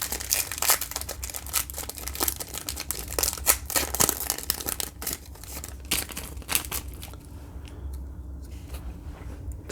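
A trading card pack's wrapper being torn open and crinkled in the hands, with a dense crackling that eases off over the last couple of seconds.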